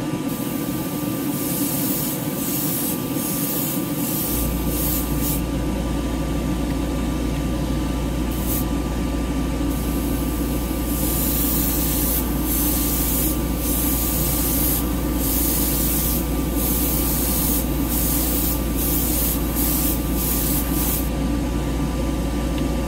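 Airbrush spraying light tack coats of 2K clear in a run of short hissing bursts, over the steady rush of a paint booth's exhaust fan. A low hum joins in about four seconds in.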